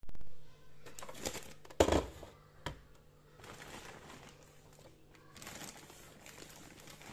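Zip-top plastic bags of shredded soap scraps crinkling and rustling as they are lifted and moved. A sharp knock just under two seconds in, the loudest sound, and a lighter one about a second later.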